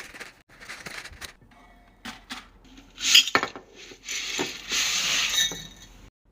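Dry spaghetti being put into a tall storage container: scattered clicks and clinks as the sticks knock against the container, then a rattling slide of the strands going in about four seconds in. The sound cuts off suddenly near the end.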